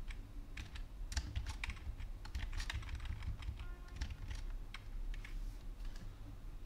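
Typing on a computer keyboard: irregular key clicks, a few a second, over a low steady hum.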